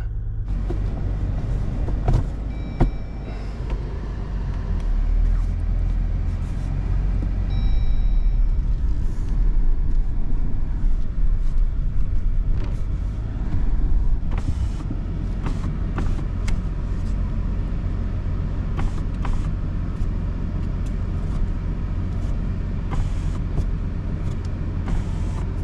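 Jeep Wrangler's 3.0-litre EcoDiesel V6 turbodiesel running from cold, heard as a steady low rumble inside the cabin, with the engine not yet warm enough to give heat. Short electronic dash chimes sound about 3 and 8 seconds in, among scattered clicks and knocks.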